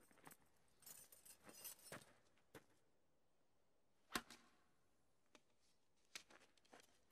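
Near silence broken by faint scattered clicks and rustling, with one sharper click about four seconds in.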